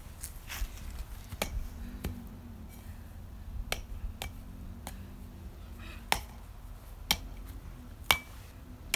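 Sharp clicks and knocks about once a second, the loudest about eight seconds in as a baseball bat is swung down onto pumpkin pieces on the grass. A steady low rumble runs underneath.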